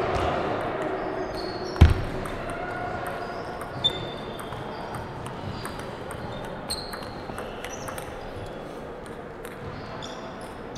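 Table tennis ball clicking sharply against paddles and the table during play, with a loud thump about two seconds in and a brief high ping near four seconds.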